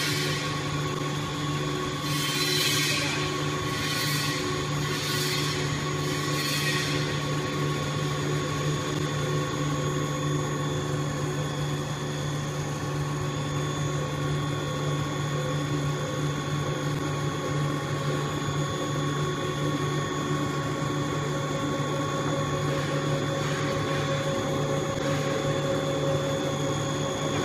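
Puffing snack extruder running: a steady machine hum with constant high tones over it, and a few short hissing bursts in the first seven seconds.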